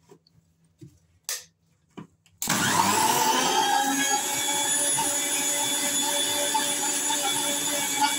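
A few light knocks and clicks, then a kitchen mixer grinder's motor switches on about two and a half seconds in. It spins up quickly and runs steadily, blending a mango milkshake with milk and ice in its jar.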